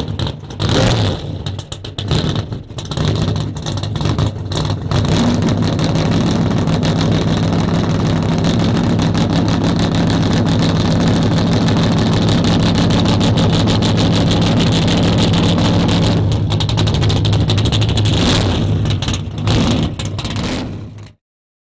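A muscle car's V8 engine running loud. It revs unevenly for the first few seconds, then holds a steady note for about ten seconds, and cuts off suddenly near the end.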